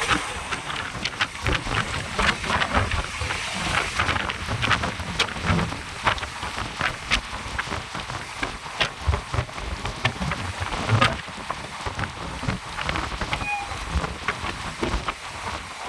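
Moving passenger train heard from inside the coach: a steady rush of air and a low rumble, with many irregular sharp clicks and rattles.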